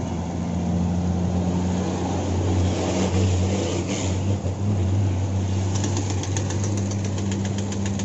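Heavy diesel dump trucks driving by on a gravel haul road: a steady engine drone, with tyre and gravel noise swelling about three to four seconds in as one passes close. From about six seconds a fast, regular ticking, about five a second, joins the engine sound.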